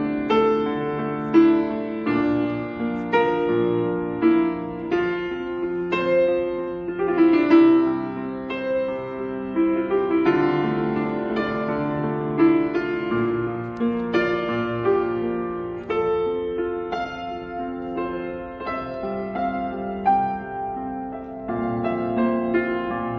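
Solo piano playing a melody over chords, each note struck and left to ring.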